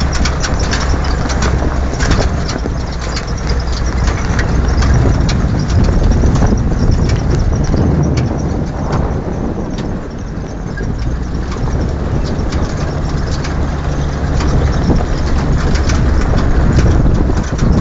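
A vehicle travelling over a rough gravel road: a steady low rumble with irregular rattling and clicking of stones and loose parts.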